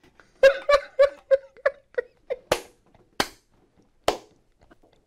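A person laughing in a run of short ha-ha bursts, about three a second, that slow down and fade out. A few sharp smacks are mixed in among the later bursts.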